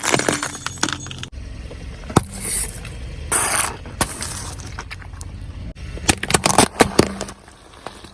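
Car tyre rolling over and crushing soft-drink bottles, with crunching, cracking and scraping over a low engine and tyre rumble. There are two short hisses a few seconds in and a cluster of sharp cracks near the end.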